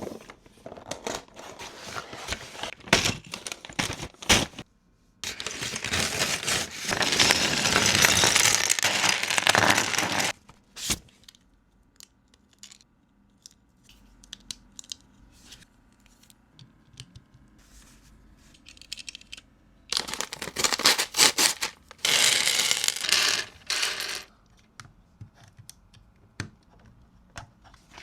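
Lego pieces and their plastic packaging being handled: scattered clicks and rattles of bricks, with two longer stretches of rustling, from about five to ten seconds in and from about twenty to twenty-four seconds in.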